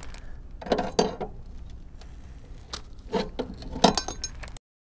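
A car's screw jack being cranked up with its lever handle: metal clinks and knocks in a few short clusters, then the sound cuts off suddenly near the end.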